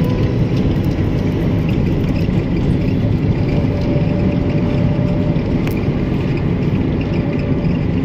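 A road vehicle is running at a steady pace, making a constant low rumble of engine and road noise, heard from the moving vehicle itself.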